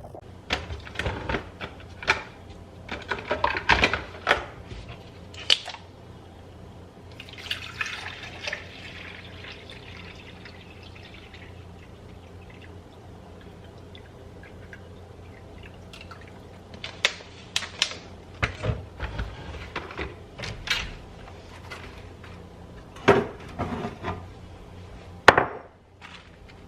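Kitchen clatter of dishes and containers being handled, with a few seconds of something pouring about seven seconds in and two sharp knocks near the end, as cat food is being prepared. A steady low hum lies underneath.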